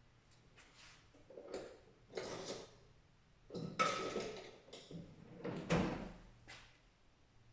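Tools being handled against metal: an irregular series of short knocks and scrapes, about eight in all, the loudest about four and six seconds in.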